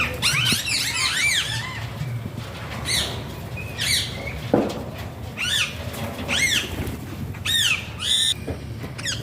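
Alexandrine parakeet calling: short rising-and-falling squawks, given in clusters of a few at a time with gaps between.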